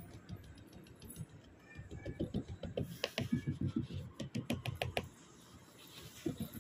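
A red-eared slider turtle biting at food on a tiled floor. Its beak and claws make a run of irregular clicks and taps, densest from about two to five seconds in.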